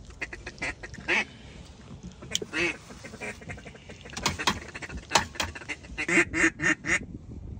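Duck quacking in several runs of short, rapid quacks, loudest in the second half.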